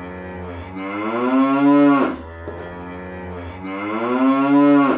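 Logo sting sound effect: a low, pitched tone swells in loudness and ends in a quick downward drop in pitch. It plays twice over a steady low hum.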